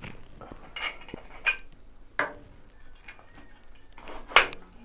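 Aluminium pressure cooker and its lid being handled: a few sharp metal clanks and clinks with a brief ring, the loudest near the end.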